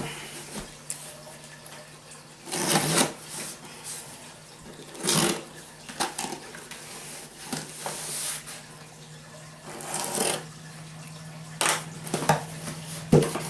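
Cardboard shipping box and its packing being opened and handled: several short bursts of rustling and scraping, with a faint steady hum beneath.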